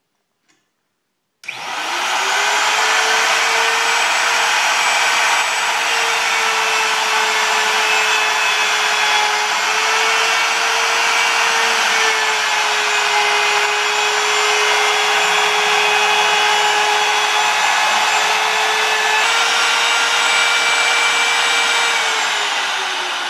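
Handheld electric router with a bearing-guided trim bit switched on about a second and a half in. It spins up quickly to a loud, steady high whine as it cuts an aluminium sign-face panel around a template, the pitch wavering slightly as it cuts. Near the end it is switched off and winds down, the whine falling in pitch.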